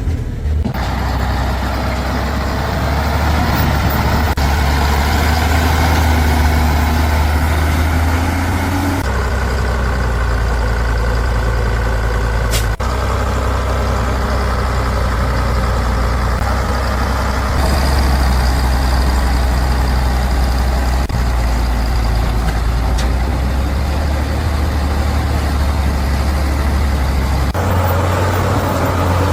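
Heavy logging truck engine running steadily under load, a deep low hum whose sound changes abruptly several times.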